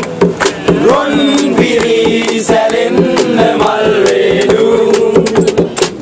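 Loud music: several voices singing together over a fast percussive beat, heard inside a crowded bus.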